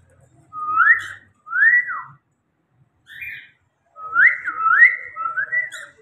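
Cockatiel whistling: two rising whistles that climb and fall back, a short note, then three quick rising whistles in a row near the end.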